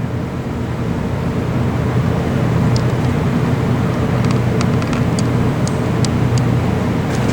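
Steady, loud engine rumble with a low droning hum, and faint scattered ticks over it.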